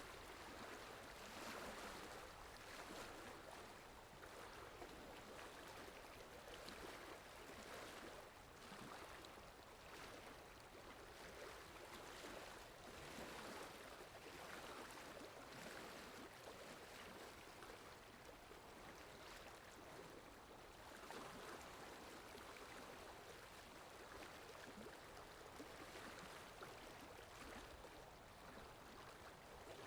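Faint, steady rush of flowing water, a stream-like water sound effect, gently swelling and easing.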